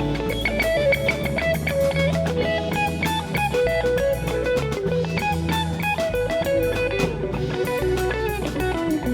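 Rock band playing an instrumental passage: electric guitar picking a flowing melody of single notes over bass guitar and a drum kit.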